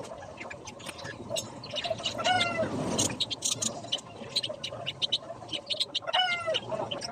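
An animal's short cry that falls in pitch, heard twice about four seconds apart, over scattered irregular clicks and taps.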